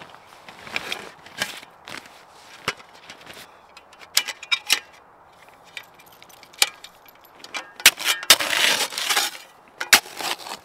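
Scattered sharp clicks and clacks of gear being handled as a collapsible snow shovel is pulled from a backpack and its shaft fitted into the blade. There is a burst of rustling about eight seconds in.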